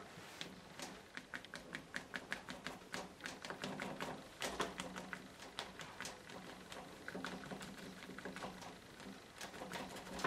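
Sponge loaded with acrylic paint dabbed repeatedly against paper on a drawing board: a quick, irregular run of taps, several a second, thinning briefly around the middle.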